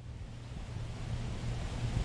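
Wind buffeting the microphone outdoors: a low, uneven rumble over a faint hiss, growing louder about a second in.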